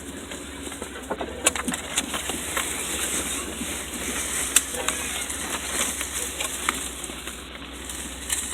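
Off-road vehicle jolting slowly over a rough trail. Irregular knocks and rattles sound over a steady low rumble, the sharpest knocks about one and a half and four and a half seconds in.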